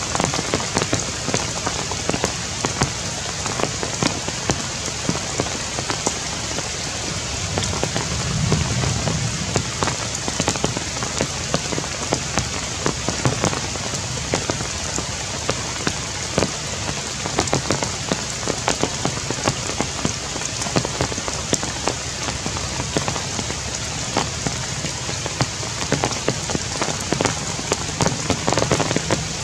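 Heavy rain falling steadily on tree leaves, with many individual drops landing close by as sharp taps.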